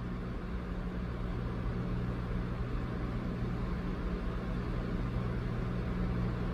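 Steady low hum under a faint hiss, with no distinct events: room tone.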